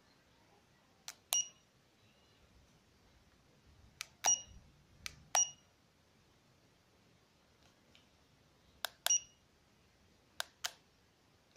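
Handheld laser distance meter being operated: plastic button clicks, four of them followed by a short, high electronic beep, and two more clicks near the end with no beep.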